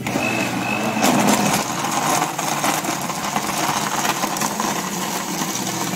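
Electric countertop blender running steadily, crushing ice and red fruit into a smooth juice; it gets louder about a second in.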